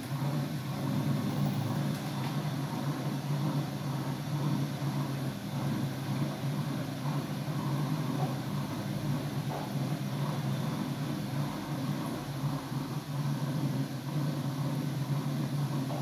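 Front-loading washing machine running a wash cycle: a steady hum from the machine as the drum turns the laundry.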